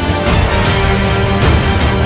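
Background music with sustained tones over a steady beat.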